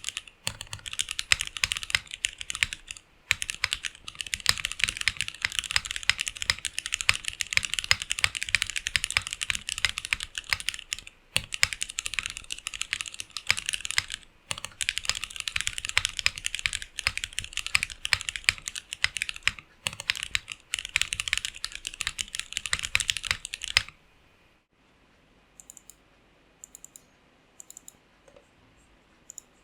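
Typing on a custom gasket-mount 60% mechanical keyboard with a polycarbonate plate and acrylic sandwich case: a fast, steady stream of keystrokes with a few short pauses. About 24 seconds in the typing stops, and only a few faint single key presses follow.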